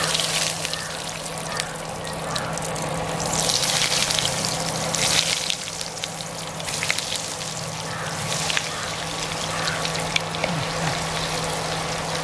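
Breaded fish cutlets deep-frying in a pan of hot oil: steady sizzling and bubbling with many small crackles, louder for a couple of seconds around the middle.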